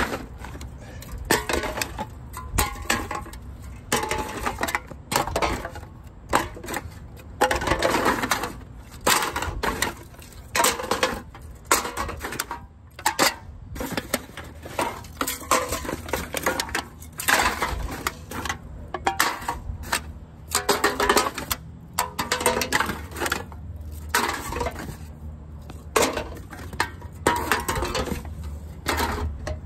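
Empty aluminum drink cans clattering and clinking against each other in a cardboard box as a hand shifts and sorts through them, a quick, irregular series of rattles with no letup.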